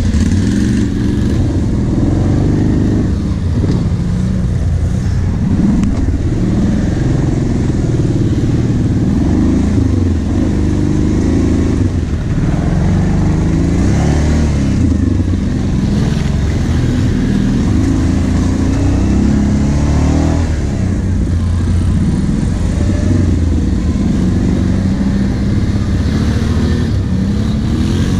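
Kawasaki KVF 750 Brute Force ATV's V-twin engine running under load, revving up and easing off again and again.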